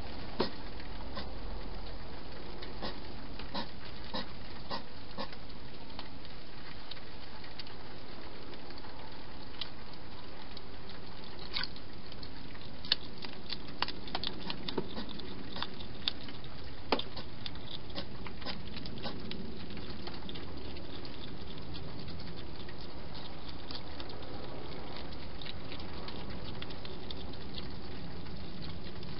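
Wild European hedgehog feeding at a dish, its mouth making scattered small wet clicks and smacks, thickest in the middle.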